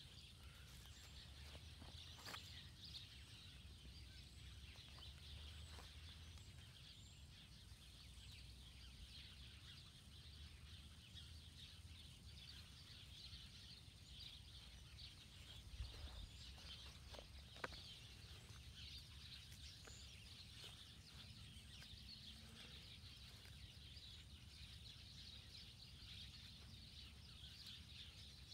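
Faint outdoor ambience: a continuous dense layer of high-pitched chirping with a low rumble underneath. A few sharp clicks stand out, the loudest about 17 seconds in.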